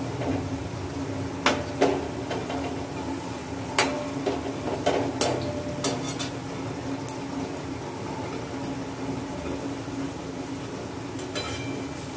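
A slotted metal skimmer knocking and scraping against a steel wok as palm puli are turned in hot oil: a cluster of sharp clinks in the first half and one more near the end. Underneath, the oil frying steadily on low heat.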